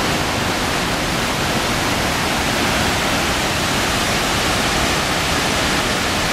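River water pouring over a dam spillway and churning through rocky rapids below in a wide flow: a loud, steady rush of white water.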